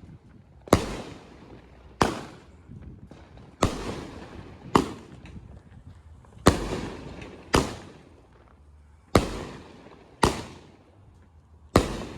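A consumer fireworks cake firing its shots one after another: nine sharp bangs, one every second or so, each trailing off in a short echo.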